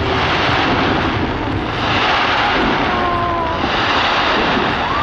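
Fireworks display going off continuously: a steady rumble of overlapping bursts with dense crackling.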